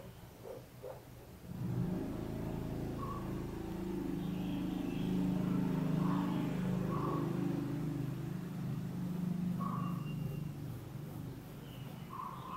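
A motor vehicle engine running steadily, starting suddenly about a second and a half in and easing slightly toward the end.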